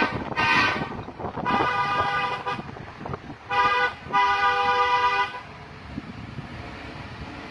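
Truck air horn blowing four blasts, the last two close together, a chord of several steady tones, over the low rumble of a heavy diesel engine that carries on alone after the last blast.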